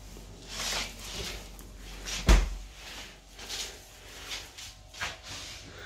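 Handling and rustling noises with one solid thump about two seconds in, the sound of a refrigerator door being shut.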